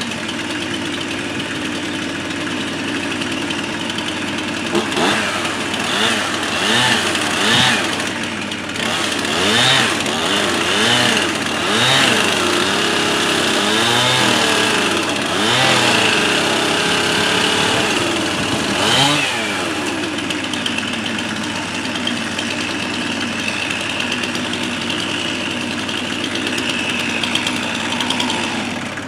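A compact tractor's engine idling steadily, while a STIHL chainsaw is revved in repeated short bursts, rising and falling in pitch about a dozen times from about five seconds in until near twenty seconds. After that only the tractor and the saw's idle carry on.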